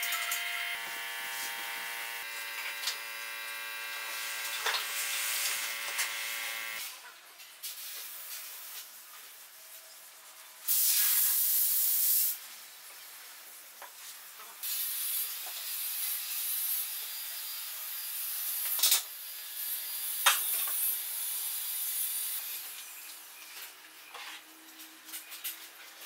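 Wooden parts handled, rubbed and knocked against a wooden workbench during assembly, with scattered clicks and a scratchy hiss through the middle stretch. A set of steady held tones plays for the first seven seconds, and a loud burst of hiss lasts about a second and a half near the middle.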